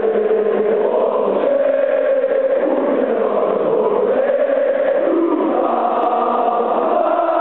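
A stadium crowd of Sporting CP supporters singing a chant together, thousands of voices holding a slow, sustained melody.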